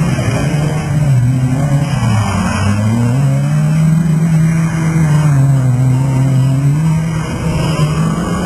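Autocross race car engine running hard, its pitch dropping and climbing again several times as the driver lifts off and accelerates through the corners.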